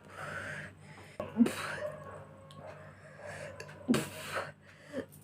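A woman hiccuping: three sharp, sudden hiccups about a second and a half, four and five seconds in, with breathy sounds between them. They are brought on by gulping fizzy cola.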